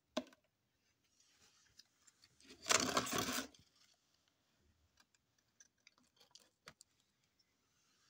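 Handling noise: a sharp click, then a loud rustle lasting about a second, then a few light clicks.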